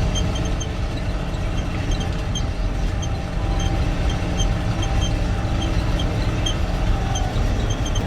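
Self-propelled swather's engine running steadily, heard from inside the cab as the machine is driven across a field.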